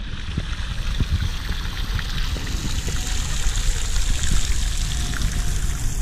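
Fountain jets arcing into a pool, a steady rush and splash of falling water.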